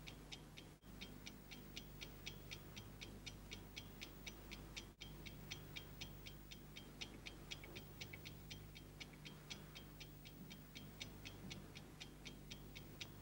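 A mechanical clock ticking fast and evenly, about five ticks a second, over a steady low hum. The sound drops out for a moment twice, about a second in and again near five seconds.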